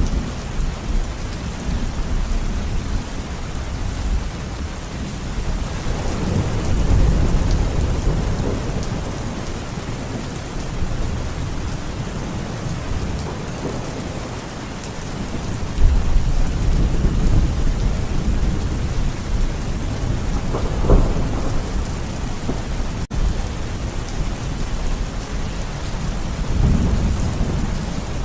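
Steady heavy rain with thunder rumbling several times, one clap starting suddenly about halfway through.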